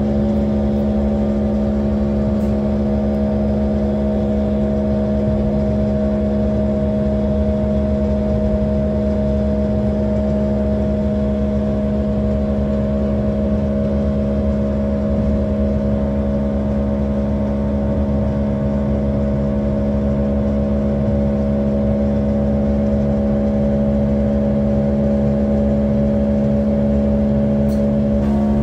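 Diesel engine of a Pesa Link (class 632) diesel multiple unit running at a steady high speed, heard from inside the railcar, over a low running rumble. Right at the end the engine note drops.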